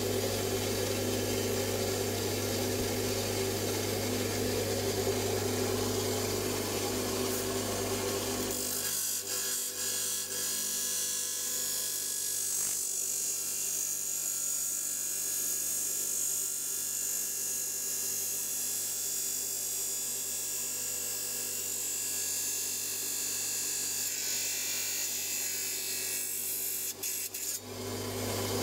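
Power tool working stone, cutting into a badly cracked agate nodule. A steady motor hum for about the first nine seconds gives way to a high hissing grind, and the hum comes back near the end.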